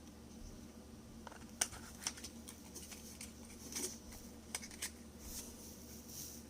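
Scattered small clicks and taps from handling a nail polish bottle and its packaging, over a faint steady hum.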